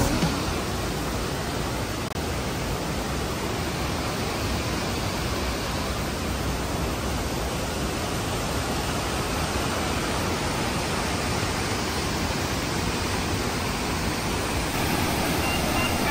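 Steady, even rush of water pouring over Bousra Waterfall.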